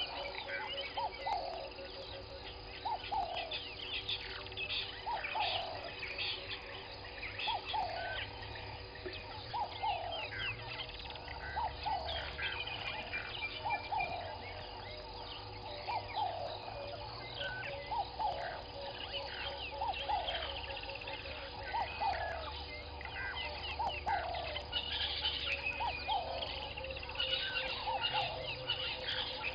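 Bird chorus: a repeated falling call, about one a second, over many higher chirps and twitters.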